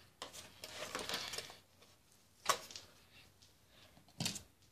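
Close handling noise: about a second of rustling, then two sharp clicks, one about halfway through and one near the end.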